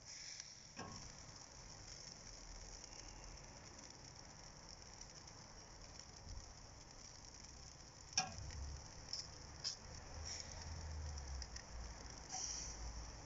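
Faint sizzling and crackling of a pork shoulder roasting on a rotisserie over hot charcoal, with a few sharp pops: one about a second in and several between about eight and ten seconds in.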